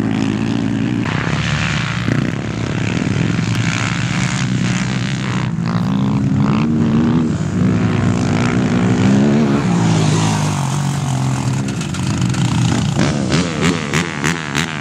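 Quad bike engines revving as two quads race, their pitch rising and falling with throttle and gear changes. Near the end the engine note comes in quick regular pulses.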